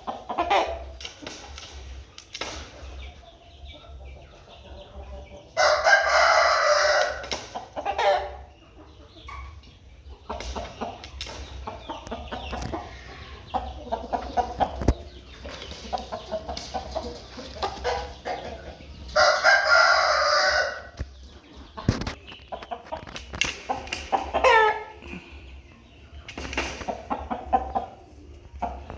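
A rooster crows twice, each crow lasting a little under two seconds, the first about six seconds in and the second about twenty seconds in. Chickens cluck with shorter, quieter calls in between.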